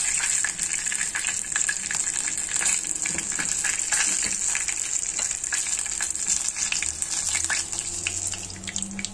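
Chicken wing deep-frying in hot oil in a wok, a steady sizzle full of small crackles. The sizzle eases near the end as the wing is lifted out of the oil.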